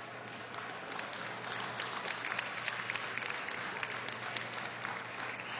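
Audience applauding: many hands clapping, building up about half a second in and easing off near the end, over a steady low hum.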